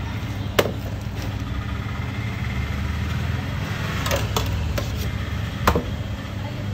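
A few sharp clinks of a steel spoon knocking against stainless steel serving trays as a dabeli bun is filled, about half a second in, several near four seconds and one near six seconds. A steady low hum runs underneath.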